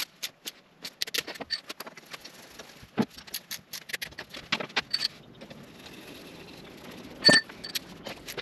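Metal hand tools clicking and clinking at irregular intervals while the new spark plugs are fitted, with one louder, ringing metallic clink near the end.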